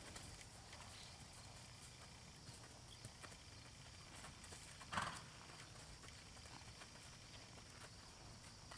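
Faint hoofbeats of a ridden horse on grass and dirt, with one louder short noise about five seconds in.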